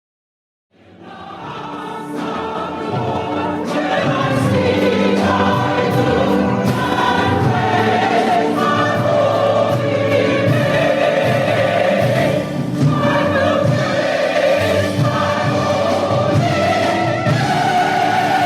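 A choir singing gospel music with accompaniment, fading in about a second in.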